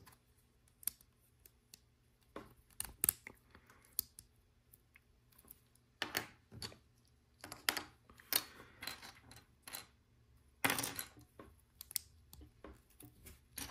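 Plastic LEGO bricks clicking and clattering as pieces are picked from a loose pile on a table and handled, in scattered sharp clicks with a couple of longer rattles.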